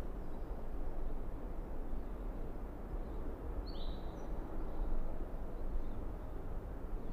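Steady low outdoor background noise with a single short bird chirp about four seconds in.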